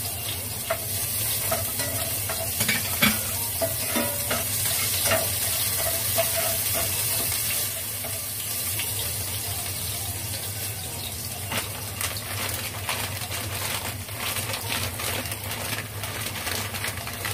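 Garlic and onion sizzling in hot oil in a pot, a steady hiss that is strongest in the first half, with scattered clicks and scrapes of a utensil stirring against the pot.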